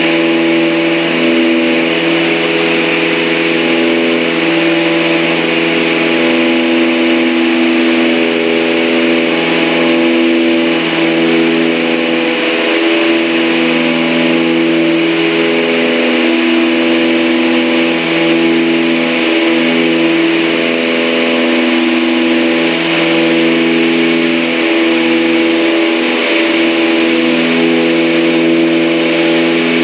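A Piper Aztec's two six-cylinder Lycoming engines and propellers running steadily at climb power, heard inside the cockpit. The tone rises and falls slowly every couple of seconds.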